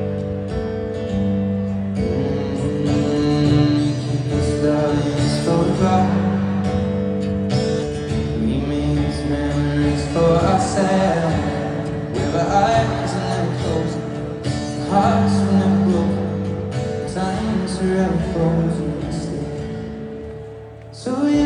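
Live pop ballad played over a stadium sound system, with held chords and a male voice singing, heard from the stands. The music dips briefly near the end, then comes back louder.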